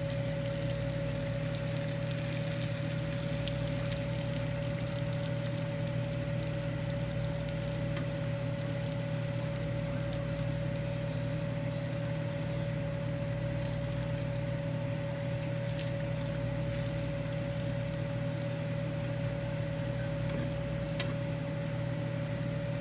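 Oil sizzling and crackling steadily around bread frying in a skillet, over a steady low hum. One sharp click near the end.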